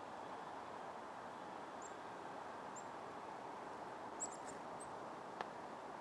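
Steady outdoor background noise with a few faint, very high, thin chirp notes from small songbirds, several close together about four seconds in. A single sharp click sounds near the end.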